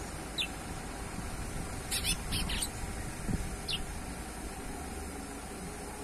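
Juvenile chestnut-bellied seed finch (curió) giving short high chirps: one near the start, a quick cluster of several about two seconds in, and one more a little later, over a steady low background rumble.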